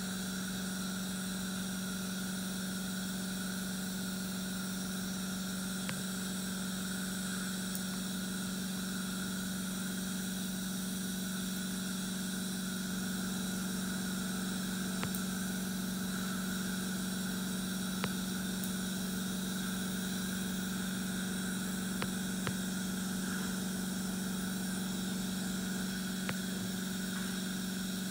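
Steady hum of running dental-clinic equipment, with a few faint clicks of metal hand instruments.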